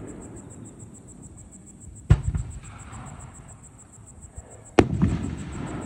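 Two aerial firework shells bursting, about three seconds apart: each a sharp boom followed by a low rolling echo.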